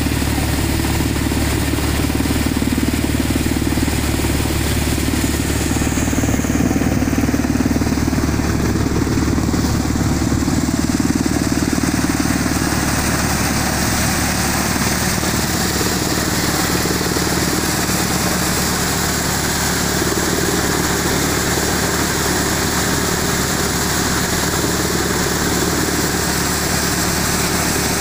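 Tractor-driven threshing machine running steadily under load, its drum and fans driven from the tractor's diesel engine while crop is fed in and threshed grain pours out.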